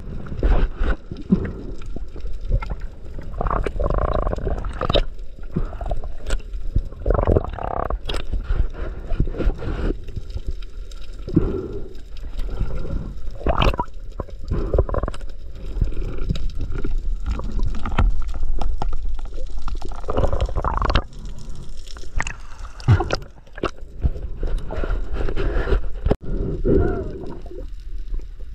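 Muffled underwater noise picked up by a camera in its waterproof housing: irregular rumbling and gurgling of water moving around it, with scattered sharp clicks.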